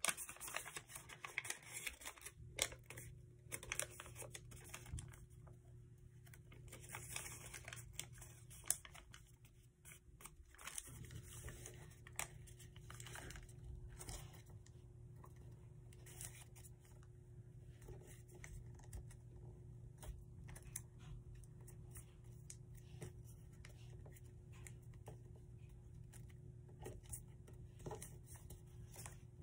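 Origami paper crinkling and crackling in the hands as it is folded and creased, with many short, sharp crackles that are busiest in the first half.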